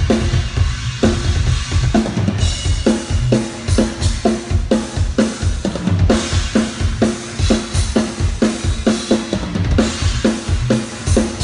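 Drum kit played in a fast, even pattern of snare and tom strokes over bass drum, with cymbal crashes about two seconds in, around six seconds in and near the end.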